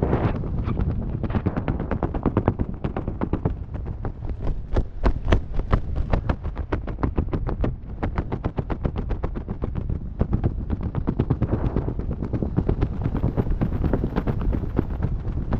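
Wind buffeting the camera's microphone in flight: a loud, rapid, irregular fluttering rumble.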